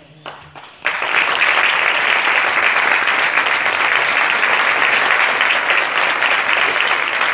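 Audience applauding, many hands clapping at once; it starts abruptly about a second in and then holds steady.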